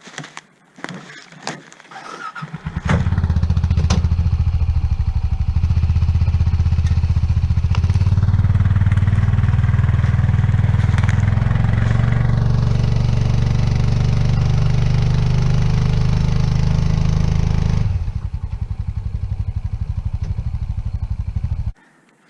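A few knocks, then an engine starts and runs steadily at a low, even pitch for about fifteen seconds, easing down a little near the end before it is shut off.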